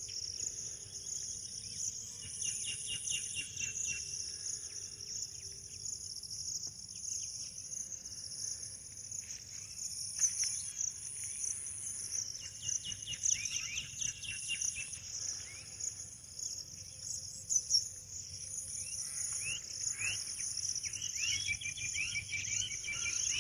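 A steady, high-pitched insect chorus, with a higher layer that pulses on and off. Short runs of quick bird chirping break in three times.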